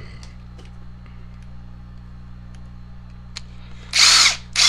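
Ridgid cordless driver run in two short bursts near the end, its motor pitch curving up and down as it turns a screw to free a brush from an electric chainsaw motor. Before that only a steady low hum and a few light clicks.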